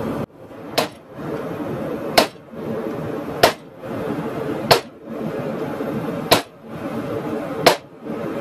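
Hammer blows on a hot cut chisel cutting the split into a red-hot steel tong jaw held in a vise: six sharp strikes, about one every second and a half. Between them runs the steady noise of a running forge.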